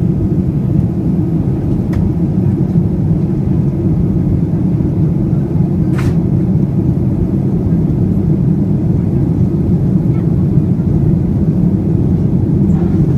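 Steady low rumble of a Boeing 737-800's CFM56-7B jet engines and airflow heard inside the passenger cabin, with a single sharp click about halfway through.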